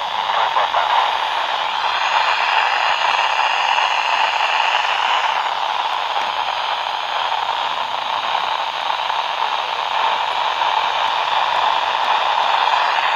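Steady FM receiver hiss from a handheld amateur transceiver's speaker with the squelch open, tuned for an amateur satellite downlink and no voice coming through.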